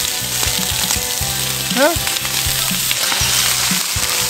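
Stuffed squid sizzling in oil on a hot iron griddle as the skewers are turned over.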